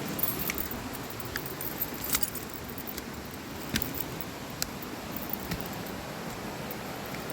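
Steady rush of running water in the rainforest, with scattered sharp clicks and short high chirps over it, a few to the second.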